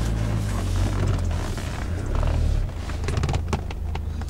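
Low engine and drivetrain rumble inside the cabin of a Toyota Land Cruiser Prado (LC120) moving over rough sandy ground, easing off a little before three seconds in. Then comes a quick cluster of creaks and knocks from the body and interior as the vehicle pitches.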